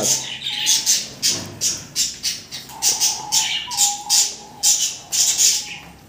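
Birds squawking and chirping in quick succession: many short, sharp, high calls, several a second, with a few faint held notes in the middle.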